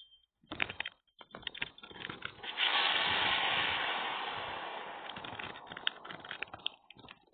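Cartoon sound effect of a volcano erupting: crackling as the lava rises, then a sudden loud rushing blast about two and a half seconds in that slowly dies away, with scattered crackles.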